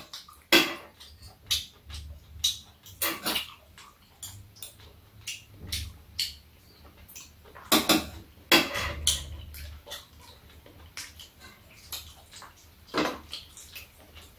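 Metal spoon and utensils clinking and scraping against a bowl and a metal tray during a meal: an irregular run of small clicks and knocks, with a few louder ones every few seconds.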